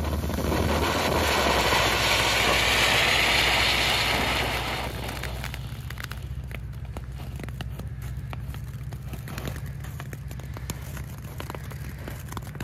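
Small ground firework fountains spraying sparks: a loud hiss for about the first five seconds, then a quieter fountain with a dense crackle of popping sparks.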